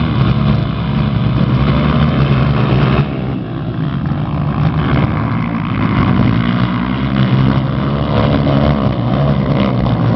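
Several motocross motorcycle engines racing, their pitch rising and falling as the riders rev and shift. The sound drops suddenly about three seconds in, then builds again.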